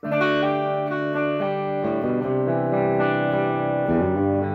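Electric guitar, a modern-wired Gibson Les Paul with a 61 Zebra humbucker, playing sustained chords through an overdriven Marshall DSL20HR amp, changing chord every second or so. The guitar's volume is rolled back to 7 with the tone on 10, cleaning up the overdrive into a brighter, cleaner tone.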